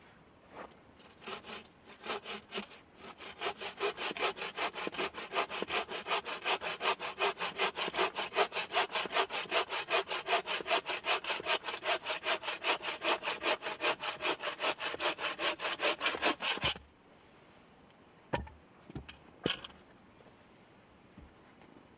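Bucksaw cutting through wood by hand, starting with a few slow strokes and settling into a steady, quick back-and-forth rhythm. It stops suddenly about three-quarters of the way through, and two or three short knocks follow.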